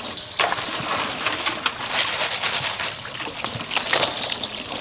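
Live crabs scrabbling and clicking against each other and the sides of a metal bowl as the bowl is handled: a dense crackle of many small, sharp clicks.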